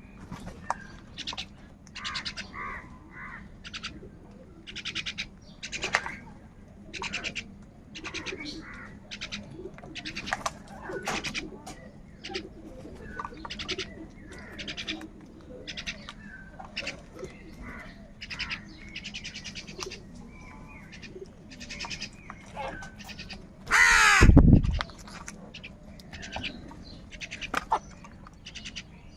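A flock of crows cawing, many short calls overlapping from several birds at once. One much louder caw, very close, comes about 24 seconds in.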